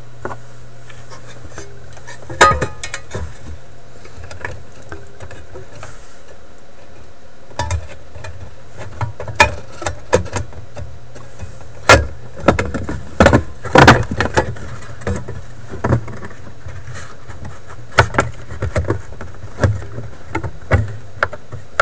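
Irregular clicks, taps and light metallic knocks of hands handling wires and parts inside an old tube record player's chassis, over a steady low hum. The loudest knocks come in a cluster about halfway through.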